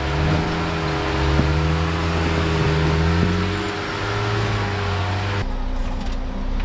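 Off-road 4x4's engine running at low speed as the vehicle crawls over trail rocks, its pitch wavering slightly, with a rushing noise over it; the sound changes abruptly about five and a half seconds in.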